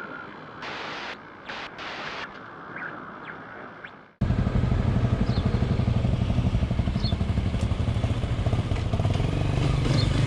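Logo intro sound effects with short whooshes, then a sudden cut about four seconds in to a single-cylinder 250 cc dual-sport motorcycle engine running steadily at low revs, heard from the bike itself.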